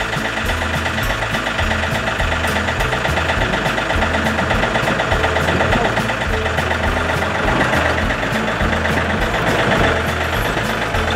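Yanmar diesel engine of a John Deere compact tractor running steadily as the tractor creeps forward, a little louder from about four seconds in.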